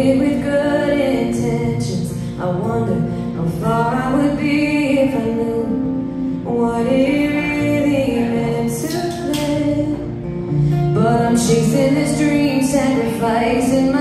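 A woman singing a slow song live while strumming a steel-string acoustic guitar.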